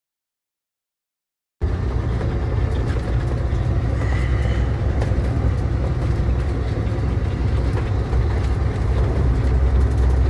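Dead silence for about a second and a half, then a large engine running steadily with a deep, even rumble and a constant mechanical rush.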